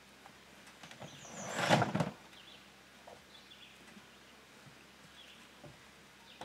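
A hard plastic carrying case being pulled and slid out of a side-by-side's cargo bed: a scraping rustle that builds over about half a second and stops about two seconds in. Faint bird chirps now and then.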